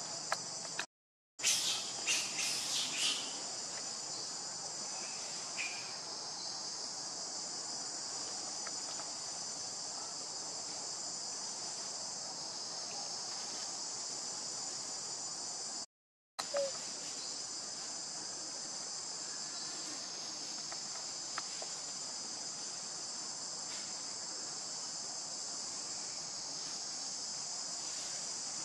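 Steady high-pitched chorus of insects chirring, broken by two short dropouts to silence, one about a second in and one about halfway through. A few brief sharp high sounds come shortly after the first dropout.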